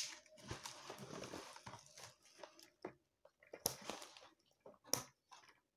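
Faint rustling and crinkling of doll packaging being handled by hand, with a few short sharp clicks.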